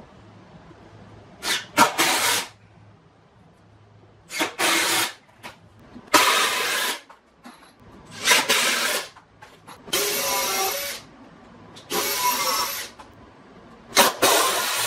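Cordless impact driver driving screws into a treated 2x4 toe-kick frame, in about seven short runs, each under a second, with pauses of a second or so between them.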